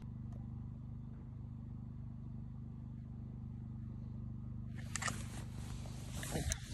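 A steady low motor hum throughout. About five seconds in, the nylon tent and sleeping bag start rustling as someone stirs and sits up.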